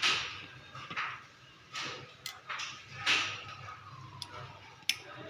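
Handling of a fiber-optic fusion splicer: soft rustling swells as the fiber is laid into the splicer's fiber holder, with a few sharp small clicks, the last and loudest near the end, as the holder's clamps are snapped shut.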